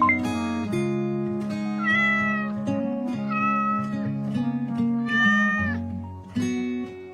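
A cat meowing three times, each meow about half a second long, over background guitar music.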